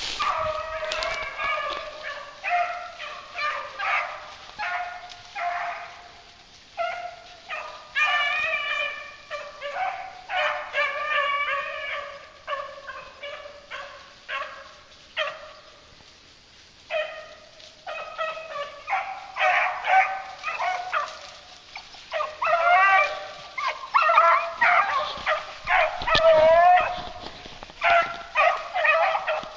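A pack of beagles baying while running a rabbit, several hounds giving voice over one another in repeated calls, with a short lull about halfway through.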